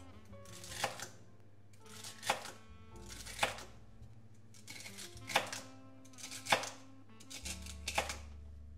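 Knife chopping vegetables on a cutting board: about six separate sharp cuts, spaced a second or more apart, over soft background music.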